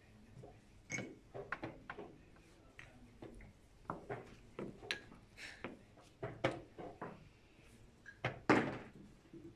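Rapid blitz chess play: irregular sharp knocks of chess pieces set down on the board and presses of a chess clock's buttons, several in quick succession at times. The loudest knock comes about eight and a half seconds in.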